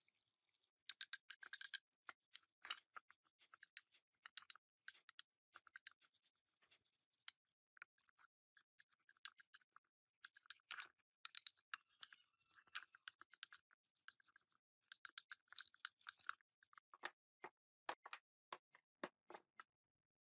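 A brush scrubbing the metal housing of an old electric chainsaw as it soaks in a basin of liquid: quiet, irregular, scratchy strokes, which turn into separate strokes a few to the second near the end.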